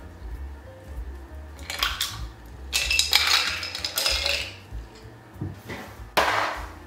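Ice cubes and iced coffee poured from a glass server into a copper tumbler, the ice clattering and clinking against the metal in bursts about two seconds in and again from about three to four seconds in. A single sharp clatter about six seconds in is the loudest moment.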